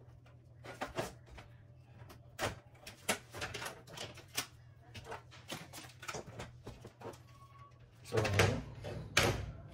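Plastic clicks and knocks from a Brother TN-2465 toner cartridge and drum unit being handled as its orange plastic shipping protector is pulled off, with a louder clatter near the end.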